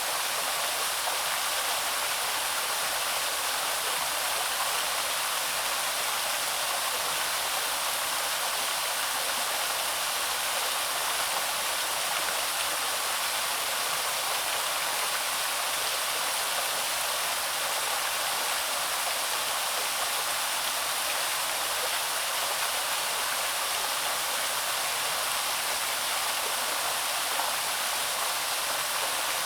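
Small waterfall splashing steadily into a stream, a constant hiss of falling water with little low rumble.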